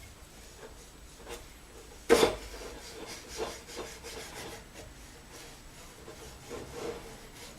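Metal pedal-box parts being handled and fitted, the accelerator pedal being slid onto its lubricated pivot tube: one sharp knock about two seconds in, then light rubbing and small clicks.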